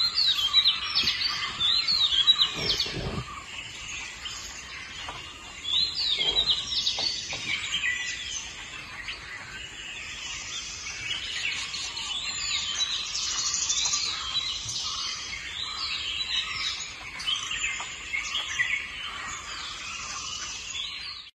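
A chorus of small birds chirping and calling, dense and overlapping, with many short chirps and quick up-and-down whistles. Two low thuds come about three seconds in.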